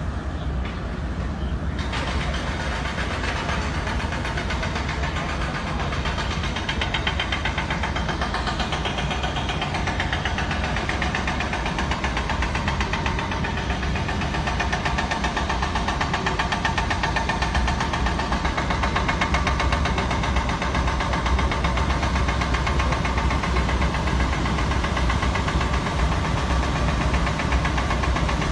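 Large ship's diesel engines running steadily with a deep drone and a fast, even pulsing, growing fuller about two seconds in as the ferry manoeuvres under power.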